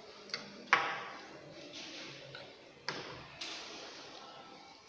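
Lab glassware being handled and set down on a bench: four sharp knocks and clinks, each ringing briefly, the loudest a little under a second in.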